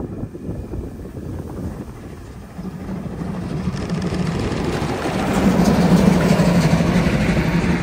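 A train approaching and growing steadily louder, with a low steady hum setting in a few seconds in and rising toward the end.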